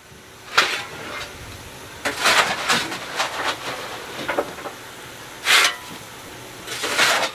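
Fireman working the fire of class 52 steam locomotive 52 7596 while it stands, readying it for a steep climb: about six irregular bursts of scraping, rushing noise over a steady hiss of steam.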